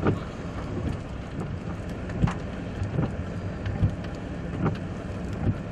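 Steady rumble of a car's running engine and wind, heard from inside the vehicle, with a few short knocks scattered through it.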